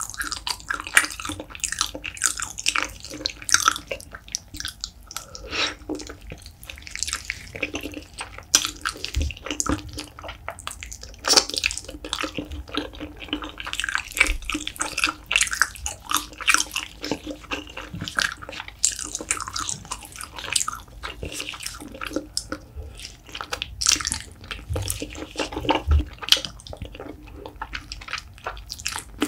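Close-miked wet, sticky chewing of spicy braised beef feet, with many small irregular clicks and squelches.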